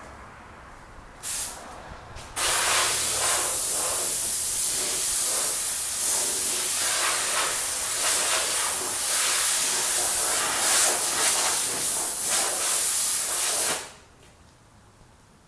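Compressed air hissing from an air hose blow gun. A short blast comes about a second in, then a steady blast of about eleven seconds that wavers as the nozzle moves and cuts off suddenly. The air is blowing water off a freshly wet-sanded headlight lens to dry it.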